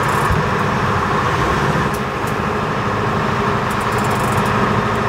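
Sportfishing boat's engine running steadily, a continuous low drone.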